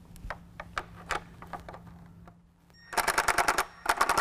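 Cordless power driver with a socket loosening a 10 mm nut, rattling in two short rapid bursts about three seconds in and near the end; light clicks of the socket and parts being handled before that.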